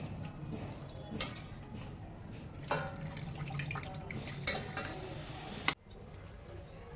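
Kitchen sounds of food preparation: water running and splashing, with a few sharp knocks of kitchenware, the loudest near the end.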